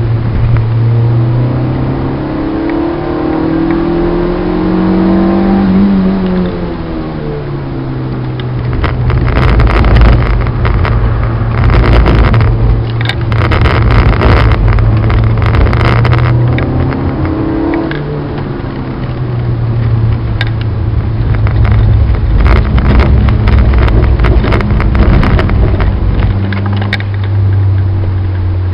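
Citroën Saxo VTS's 1.6-litre four-cylinder heard from inside the cabin, revving up over a few seconds and dropping back, then pulling at a steady, lower pitch. Spells of rapid crackling noise ride over the engine in the middle and again later on.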